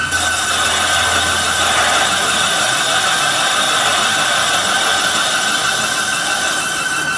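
Metal lathe running and cutting a steel workpiece, the tool peeling off swarf, a steady mechanical whirr with a constant high tone through it.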